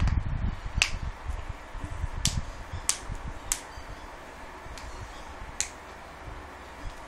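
Joints being cracked: a series of about six short, sharp pops spread over several seconds, with low rustling of body movement at the start.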